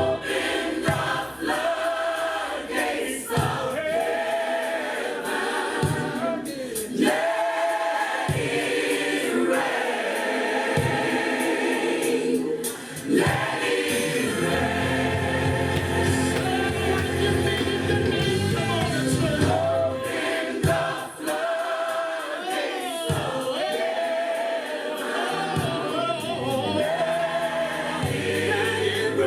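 Gospel music with a choir singing, backed by instruments.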